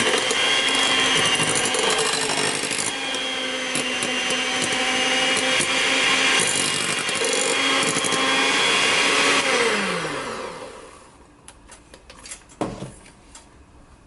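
Electric hand mixer running at a steady speed, its beaters whirring through meringue in a bowl. About ten seconds in the motor is switched off and winds down, falling in pitch, and a few light knocks follow.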